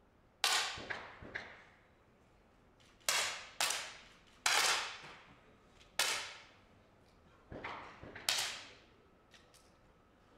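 10 m match air pistols fired by several shooters one after another: about nine sharp pops at irregular spacing over several seconds, each with a short echoing tail in the hall.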